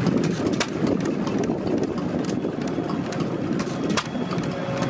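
Small single-cylinder stationary engine running, with a few sharp beats standing out irregularly against a steady mechanical clatter.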